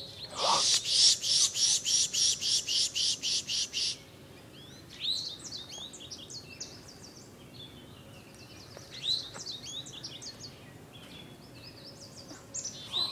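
Birds calling: a loud run of harsh, rapid notes, about four a second, for the first few seconds, then scattered short chirps and quick sweeping whistles.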